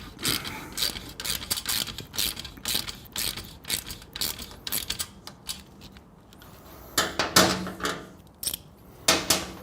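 Ratchet wrench clicking in quick back-and-forth strokes as it tightens the bolt of a motorcycle slip-on exhaust clamp, with two louder metallic clatters near the end.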